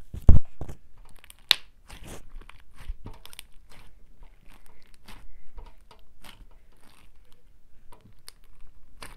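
Fingers handling things right at the microphone: irregular crackles, taps and rubbing. Two loud bumps come at the very start and a sharp click about a second and a half in.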